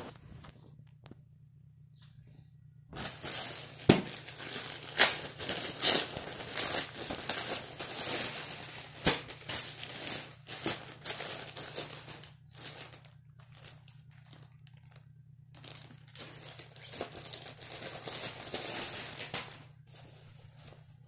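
Plastic mailer and packaging bag crinkling and rustling as it is opened and the clothes inside are handled, with sharp crackles. It comes in two long spells with a pause in the middle.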